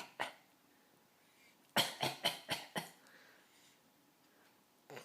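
Short, sharp coughs: one right at the start and one just after, then a quick run of five about two seconds in. The coughing is put on rather than real, a fake cough.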